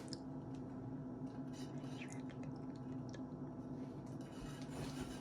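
Quiet room tone: a steady low electrical hum with a few faint scattered clicks.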